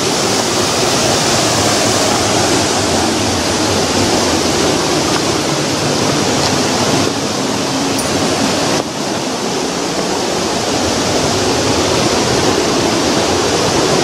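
A river rushing below the trail: a steady, even wash of flowing water.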